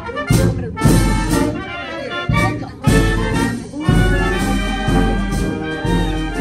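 Live brass band playing: trumpets and trombones carry the melody over a sousaphone bass line, punctuated by sharp drum and cymbal strokes every second or so.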